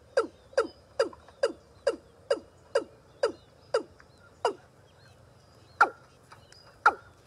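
A rail calling: a series of short, sharp notes, each dropping steeply in pitch, about two a second at first, slowing, then two more spaced out near the end.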